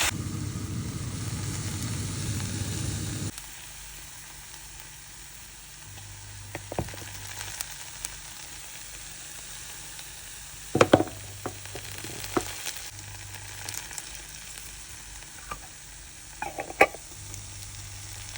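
Food sizzling in a frying pan, louder for the first three seconds, then a quieter steady sizzle, with a few short clinks and scrapes of stirring now and then.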